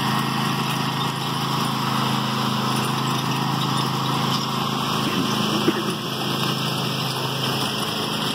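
Riding lawn mower engine running steadily as it tows a train of ride-on toy cars and a lawn sweeper across grass.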